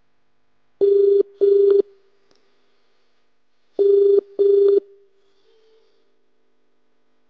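Telephone ringing tone heard through a browser softphone as an outgoing call connects. It sounds as two double rings, each a pair of short beeps, about three seconds apart.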